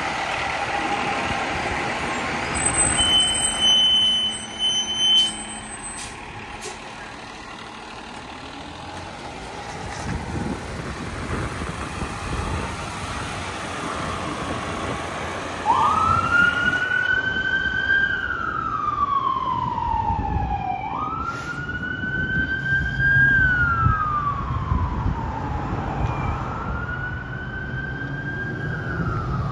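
A 2013 Pierce Arrow XT fire engine's diesel engine runs as it pulls out and drives off, with a short steady high tone a few seconds in. From about halfway its electronic siren wails, rising quickly and falling slowly about every five seconds, three times.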